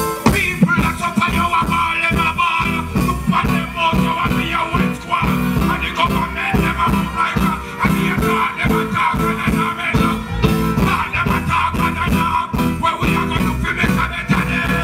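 Live reggae band playing at concert volume, with a steady pulsing beat and guitar, and a singer's voice over the band; the full band comes in right at the start after a held chord.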